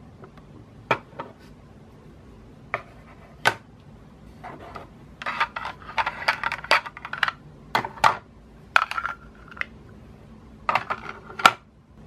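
Hard plastic toy cookware clicking and knocking as a plastic spoon stirs toy peas and a plastic chicken drumstick in a toy pan. There is a quick run of rattling clinks in the middle and a few sharp knocks near the end.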